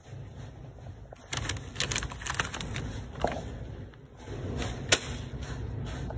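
A plastic pasta-side packet crinkling as it is handled, in two clusters of crackles, with a sharp knock about five seconds in. A steady low rumble runs underneath.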